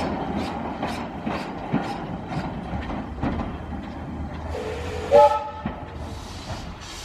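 W.G. Bagnall 0-4-0ST saddle-tank steam locomotive pulling away, its exhaust chuffing about two to three times a second over a hiss of steam and growing fainter as it draws off. About five seconds in, a short whistle toot, stepping up in pitch partway through, is the loudest sound.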